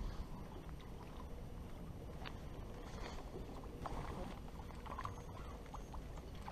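Steady low rumble and water noise around a boat slow trolling. A few light clicks and knocks come from the long crappie poles and gear being handled, about two, four and five seconds in.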